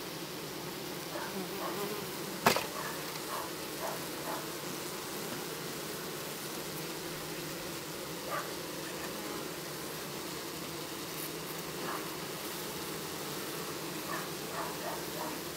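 Honeybees buzzing steadily in a low, even hum, with one sharp click about two and a half seconds in.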